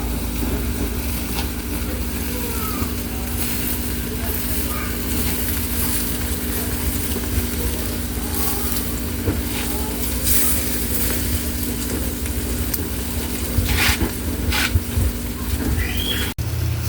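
Food sizzling over heat, with a steady low hum underneath and a few short knocks about ten and fourteen seconds in.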